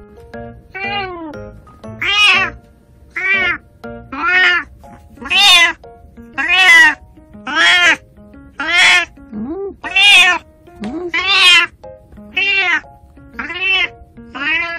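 Elderly 19-year-old cat with arthritis meowing over and over, about a dozen loud drawn-out meows roughly one a second, while she is held up and her belly massaged to help her pass stool.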